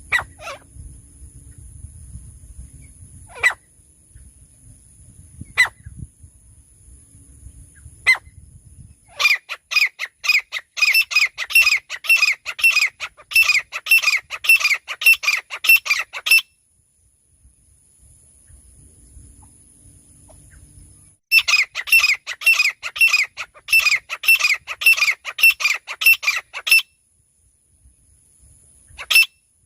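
Francolin calling: a few single sharp calls, then two long runs of rapid repeated notes, about three a second, each lasting several seconds, and one last call near the end. A faint steady high-pitched tone runs underneath.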